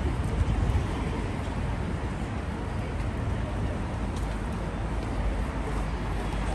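Busy city street ambience: a steady rumble of passing traffic mixed with the chatter of people walking by.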